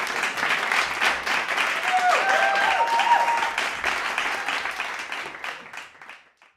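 A few people clapping by hand in a car cabin, with a voice or two calling out about two to three seconds in; the clapping dies away near the end.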